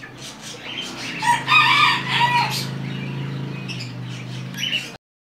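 A rooster crows once, starting about a second in, with short chicken calls around it and a steady low hum underneath. The sound cuts off suddenly just before the end.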